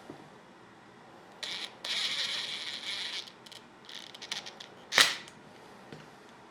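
Small metal parts of a tool rattling and ratcheting for about two seconds, then a few light clicks and one sharp click about five seconds in, as a nailer is worked on by hand.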